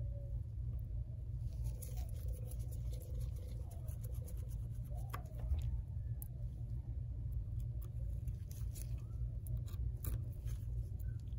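Faint scattered clicks and light scratching of a precision screwdriver's tip on the tiny screws of an iPhone XS display assembly, over a steady low hum.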